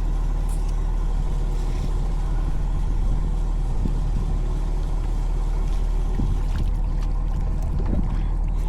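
Fishing boat's engine running steadily, an even low drone, with a few faint knocks in the later seconds.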